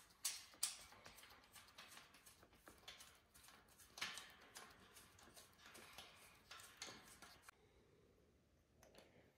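Faint, irregular clicks and scrapes of an Allen wrench in a screwdriver-style handle turning a bolt into a metal shelf frame. They stop about three-quarters of the way through.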